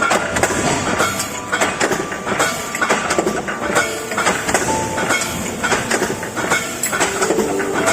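CNC steel angle and channel punching-and-shearing machine at work: a fast, irregular clatter of metallic knocks and clanks.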